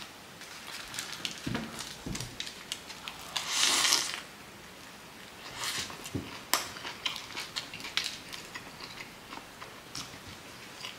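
Close-up biting and chewing of a toasted Subway Philly cheesesteak sub on wheat bread: the crunchy crust crackles in a run of small clicks, with a longer, louder crackle about three and a half seconds in.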